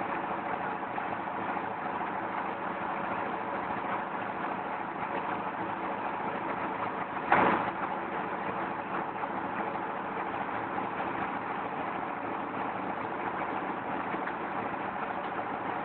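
Brick-making clay extruder running steadily with an engine-like drone. About halfway through there is one short, loud knock.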